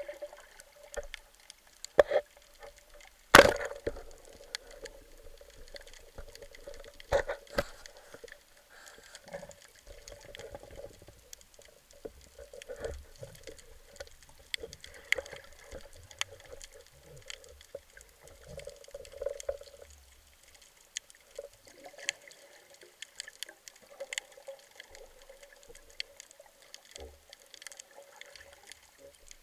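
Underwater sound picked up by a camera housing: scattered clicks and crackles over a faint steady hum, with a few louder sharp knocks, the loudest about three seconds in.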